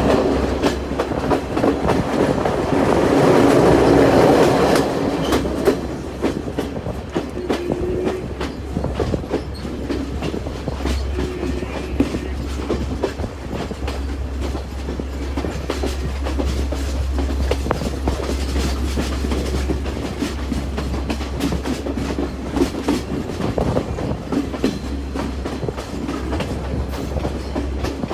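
Passenger train running on the track, wheels clicking and clattering over the rails with a steady rumble, louder for the first five seconds.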